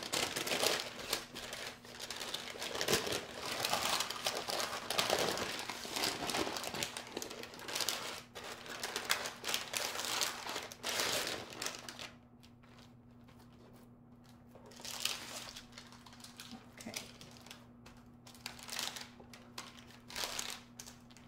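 Parchment (baking) paper crinkling and rustling as it is wrapped and rolled around a meatloaf by hand. The crinkling is loud and almost continuous for about ten seconds, then drops to quieter, scattered rustles.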